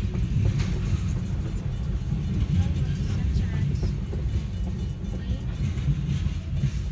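Freight train of tank cars rolling through a grade crossing, a steady low rumble heard from inside a car. Music and a voice play faintly over it.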